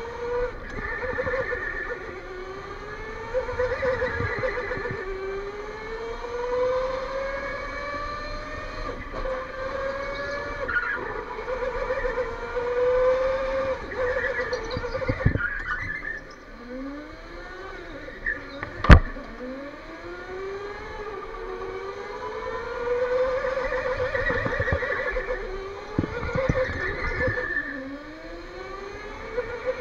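Electric go-kart motor whining, its pitch climbing as the kart accelerates and dropping away into each corner, over and over. A single sharp knock stands out about two-thirds of the way through, with a few fainter knocks around it.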